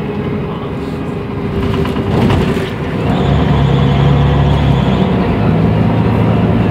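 Mercedes-Benz O345 Conecto city bus with a Voith automatic gearbox, heard from inside the cabin. A brief knock comes a little over two seconds in. About three seconds in, the engine note grows louder and steadier as the engine takes on load, and it shifts pitch again near five seconds.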